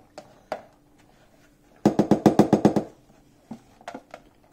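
Plastic food tub of grated cheese rattled in a quick run of about ten hollow taps lasting about a second, with a few lighter handling clicks around it.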